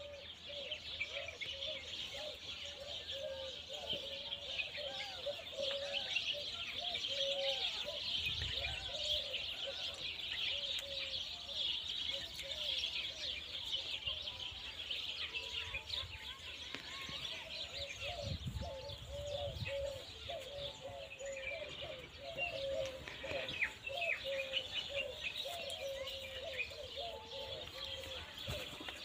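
Many birds chirping in a dense, unbroken chorus, with a lower wavering call running underneath. Two brief low rumbles come about a third and two-thirds of the way through.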